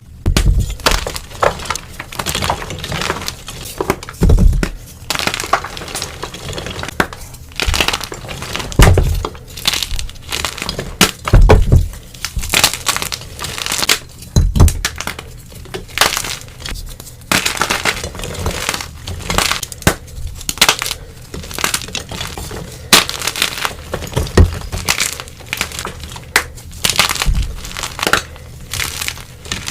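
Blocks of dyed gym chalk being crushed and crumbled, a dense run of crisp, crunchy cracks with a few heavier thuds between them.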